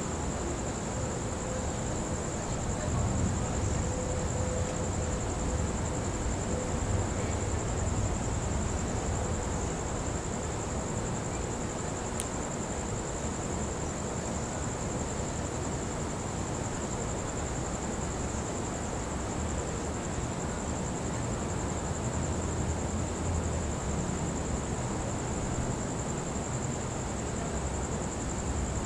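Crickets trilling in one steady high-pitched tone, over a low rumble that swells and fades a few times, with a faint click near the middle.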